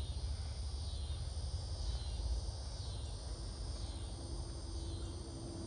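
Evening insect chorus: a continuous high chirring that swells and fades in slow waves, over a low rumble.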